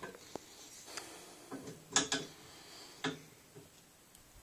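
Steel armorer's wrench clinking against an AR-15's A2 flash hider as it is fitted onto it: a series of light metal clicks and clanks, the loudest about two seconds in and another a second later.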